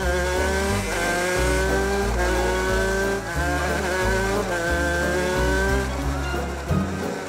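Cartoon race-car engine sound effect revving up in about four rising runs, like shifting through gears, stopping about six seconds in. Background music with a changing bass line plays underneath.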